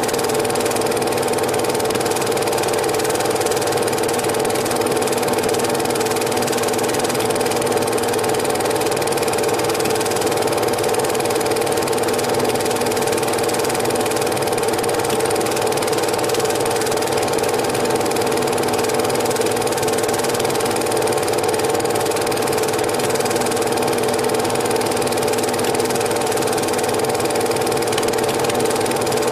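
Cine film projector running steadily, its motor and film transport giving a constant mechanical whirr.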